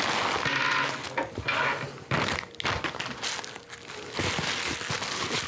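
Plastic packaging crinkling and rustling as a part is unwrapped from its red mesh protective sleeve, with a few light knocks on the table.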